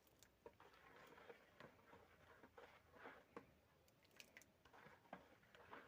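Faint, soft pats and squishes of hands pressing and shaping rice-flour dough into a round flatbread, with scattered light taps.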